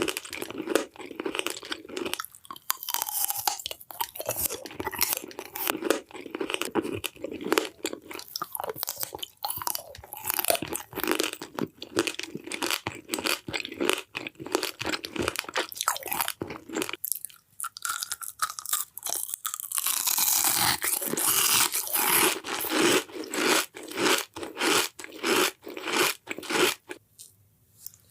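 Dense crunching and crackling: many crisp little snaps in quick succession, pausing briefly about two-thirds of the way through.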